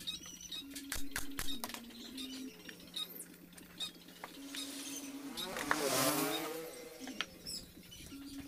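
Background music with slow, sustained low notes, over light clicks and knocks of plywood panels being handled. About six seconds in, a swish swells and fades as a plywood panel slides against the box.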